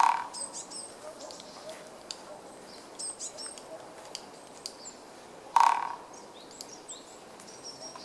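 Japanese pygmy woodpecker drumming on a tree trunk: a short, fast roll of strikes right at the start lasting about half a second, and another roll about five and a half seconds in. Faint high bird chirps come between the rolls.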